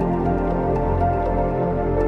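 Calm new-age background music with held, layered tones.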